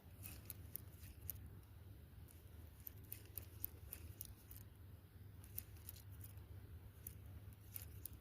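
Near silence: faint, irregular clicks and ticks several times a second over a low steady rumble.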